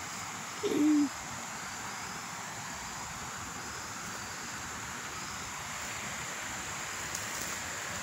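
Steady rushing hiss of a river flowing near the bank, with one short low cooing note, dropping slightly in pitch, just under a second in.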